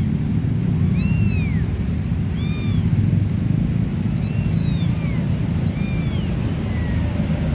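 Kittens mewing: about six short, high-pitched calls that rise and fall, over a steady low rumble.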